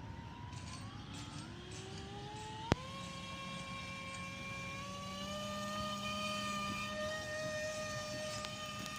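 RC plane's motor and propeller spinning up: a whine that rises in pitch over the first few seconds as the throttle is opened, then holds at a steady high speed. A single sharp click about three seconds in.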